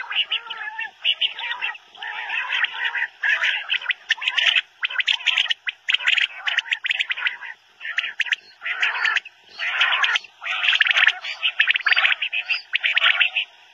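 Common quail (Coturnix coturnix) calling over and over: short bursts of rapid notes, about one burst a second with brief gaps between.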